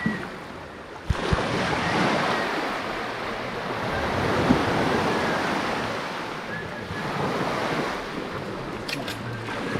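Small sea waves washing up a sandy beach, the surf swelling and easing back over a few seconds, with some wind on the microphone. Two short knocks just after a second in.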